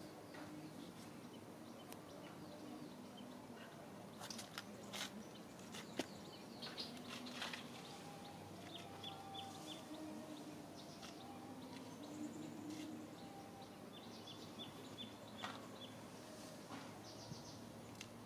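Faint outdoor ambience: birds give a few short runs of quick, high chirps, about a third of the way in and again later, over scattered soft clicks and rustles from dry leaf litter.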